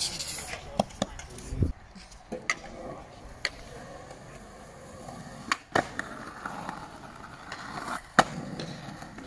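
Skateboard wheels rolling on a concrete skatepark surface, with a series of sharp clacks and knocks of the board against the ground. Near the end the board scrapes along a concrete ledge, then lands with a sharp clack, the loudest sound here.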